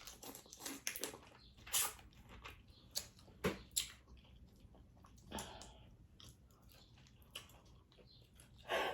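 A person chewing and eating seafood close to the microphone: irregular wet clicks and crunches, most of them in the first four seconds, then sparser and fainter.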